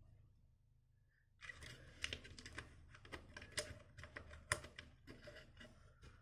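Small plastic toy parts clicking and tapping as a 1:18 scale mech and its pilot figure are handled and fitted together. A quick, uneven run of clicks starts about a second and a half in, with a few sharper knocks.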